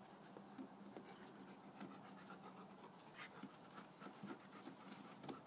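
Faint panting and scattered short scuffling sounds from a Northern Inuit pup and an Alaskan malamute play-wrestling.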